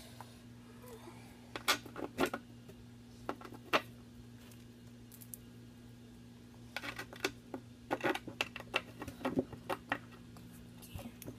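Scattered sharp clicks and small knocks of skateboard hardware being handled: a few single clicks, then a quicker run of clatters about seven seconds in.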